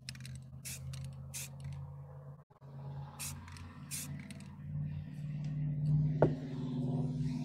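Aerosol spray-paint can hissing in several short bursts, then a longer spray from about two-thirds of the way in, over a steady low hum.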